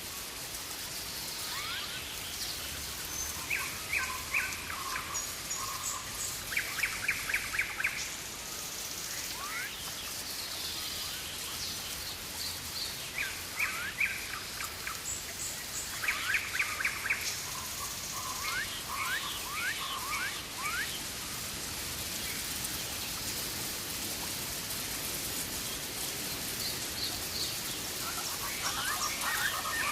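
Rainforest birds calling over a steady hiss of rain. Several times a bird gives a short burst of rapid repeated notes, mixed with quick rising whistles and brief high notes.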